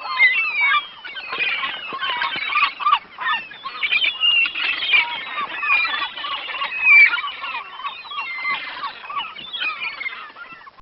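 A dense chorus of many birds calling over one another, with a steady stream of short chirps and squawks overlapping throughout.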